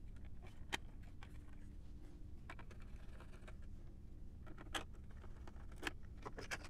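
A few scattered light clicks and taps of plastic as the opened camera head of an Elmo P30S visual presenter and its housing parts are handled, the sharpest right at the start.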